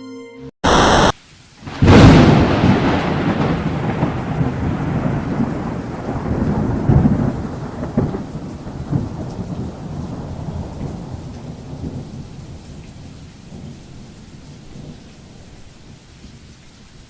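Thunder: a brief burst of noise, then a sharp clap about two seconds in that rolls into a long rumble with a few further cracks and slowly fades, over steady rain.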